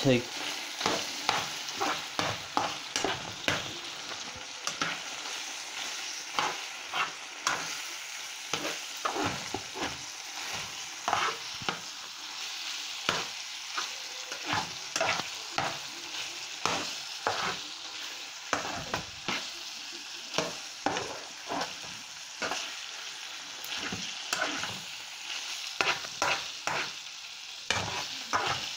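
Ground meat frying with a steady sizzle in a frying pan, while a spatula stirs and scrapes it, giving irregular sharp scrapes and taps against the pan about once or twice a second.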